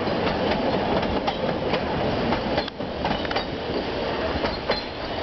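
Puffing Billy narrow-gauge train's open wooden carriages rolling across a timber trestle bridge, the wheels clattering with many irregular sharp clicks over a steady rumble.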